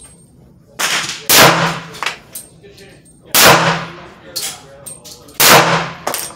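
A .38 Super pistol firing three shots about two seconds apart, each a sharp crack with a short ringing tail. A quieter bang comes just before the first shot, and small clicks fall between the shots.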